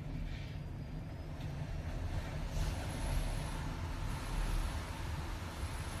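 Typhoon wind heard from inside a room: a low steady rumble, with a hiss that swells about two and a half seconds in and faint high whistling.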